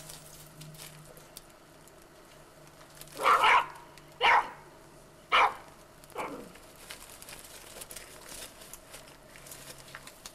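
Terrier barking: three loud, sharp barks about a second apart, then a fainter one that falls in pitch.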